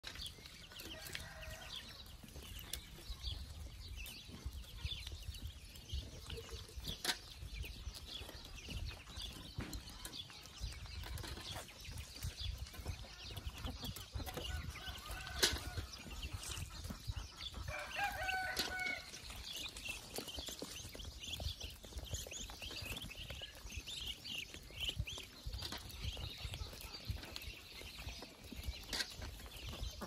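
Many ducklings peeping in short, high calls throughout, with chickens clucking now and then and a louder call around eighteen seconds in. A couple of sharp clicks stand out, one about seven seconds in and one about fifteen.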